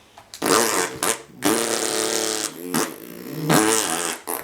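A person imitating a dirt bike engine with the mouth: a few buzzing, revving bursts and one long held rev in the middle, mimicking a motocross bike's finish jump.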